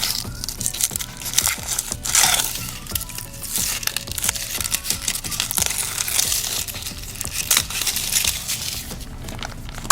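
Foil wrapper on a chocolate surprise egg being crinkled and peeled off by hand, a dense irregular crackling, over background music.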